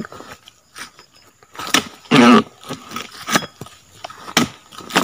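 Dodos chisel on a pole chopping into the frond bases of an oil palm: a series of sharp chops roughly once a second, with one louder, longer one about two seconds in.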